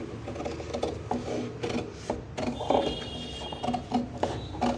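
Large tailoring scissors snipping through a stiff paper pattern along a curved armhole line: a quick, irregular run of crisp cuts with paper rustling.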